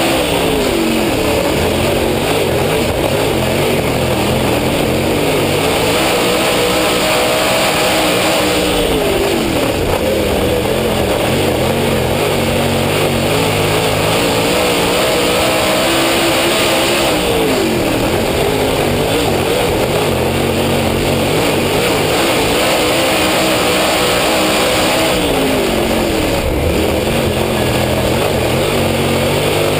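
Dirt late model race car's V8 engine at racing speed, heard from a camera mounted on the car. Its pitch sags and climbs back four times, about every eight seconds, as the car slows for the turns and powers out of them.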